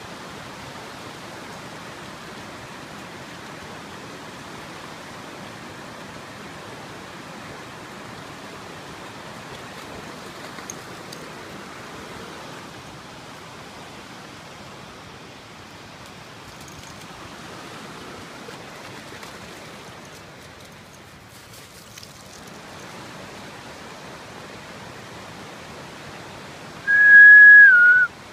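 Swift creek water rushing steadily. Near the end, one loud whistle, held about a second and dipping slightly in pitch at its end.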